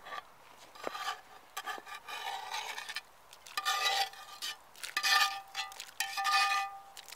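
Fried meat being scraped off a cast-iron lid into a cast-iron cauldron: a run of several metal-on-metal scrapes with a ringing metallic tone, the loudest in the second half.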